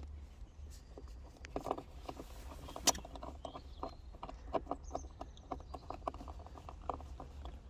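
Screwdriver driving a screw into the centre-console trim: a run of short regular clicks, about four a second, starting about a second and a half in, over a low steady hum.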